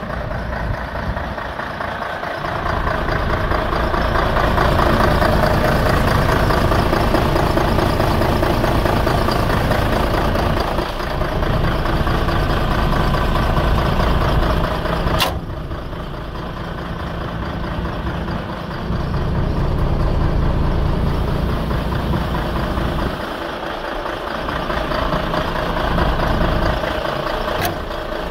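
Mercedes-Benz SK 3234 truck's V6 diesel engine idling steadily, its loudness rising and falling. A sharp click is heard about halfway through.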